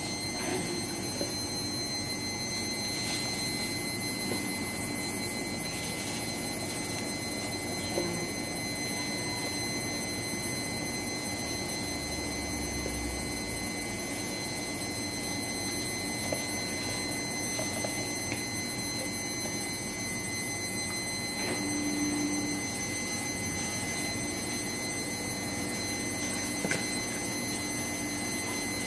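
A steady high-pitched whine with evenly spaced overtones, with a few faint knocks.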